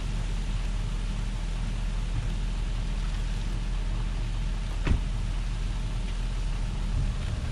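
Engine idling steadily, with a single short knock about five seconds in.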